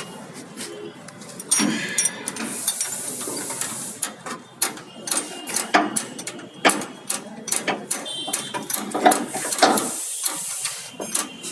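Metal clicks, knocks and rattling of hand tools and parts as a propeller shaft is fitted to a gearbox, with two spells of faster rattling.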